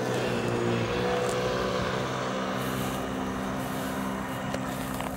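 A steady, constant-pitch motor drone over a rushing noise.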